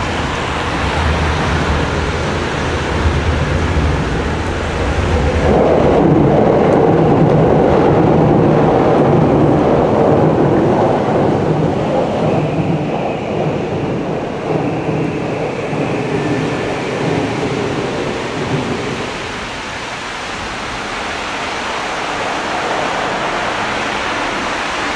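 Heavy rain, with a low rumble under it for the first few seconds. The rain swells louder about five seconds in and eases off again near the end.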